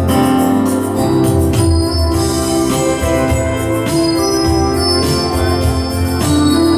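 Morning prayer music: sustained organ-like keyboard chords that change every second or so.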